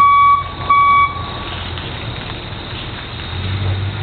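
Electronic alarm beeping: two loud pulses of one high, steady tone, which stop about a second in. A low rumble follows and swells near the end.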